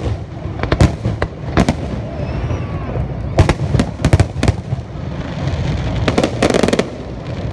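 Aerial fireworks shells bursting: a string of sharp bangs, some in quick clusters, with a dense run of rapid crackling near the end.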